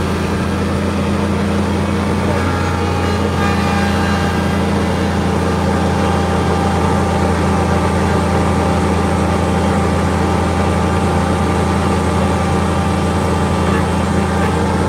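Kubota compact tractor's diesel engine running at a steady speed, heard from inside the cab, with its front snowblower fitted.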